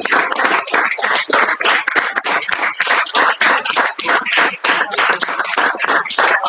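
Audience applauding: many people clapping by hand in a dense, irregular patter, with some claps close by.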